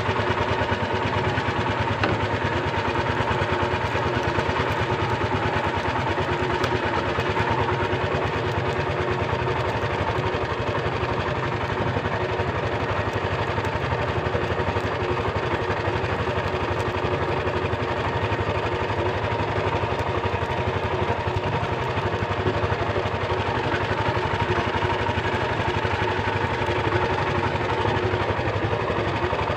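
Small fishing boat's inboard engine running steadily at an even, low trolling pace.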